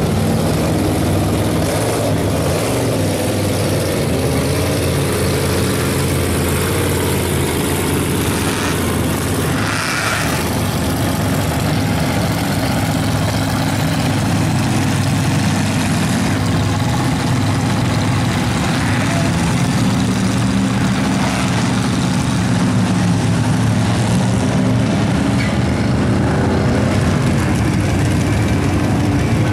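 Engines of several lifted mud trucks idling and running at low speed, a deep steady rumble whose pitch wavers a little as they are throttled.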